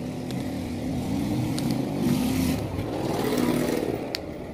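A motor vehicle's engine running, its pitch and loudness rising and falling twice. There is light plastic crinkling and a few small clicks from a soft plastic sachet being squeezed into a bottle neck.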